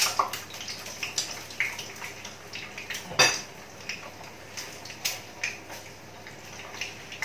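Kitchen clatter of a metal spatula and utensils knocking against a frying pan and dishes: scattered short clinks and knocks, with one sharp clank about three seconds in the loudest.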